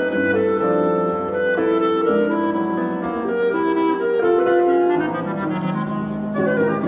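Chamber ensemble music: a clarinet plays a slow melodic line over quickly repeated viola notes and piano chords. Near the end a flute comes in with fast repeated figures.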